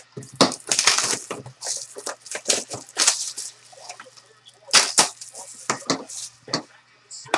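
Plastic shrink wrap being torn and crumpled off a sealed trading-card box, an irregular run of crinkling crackles.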